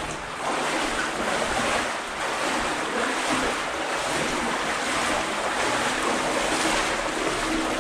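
Water flowing steadily through a brick tunnel, an even rushing noise.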